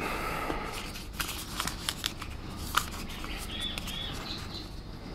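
Hands handling packaging: rustling and scattered light clicks as the Google Pixel Watch and its silicone band are worked out of a white cardboard tray, with one sharper click a little before three seconds in.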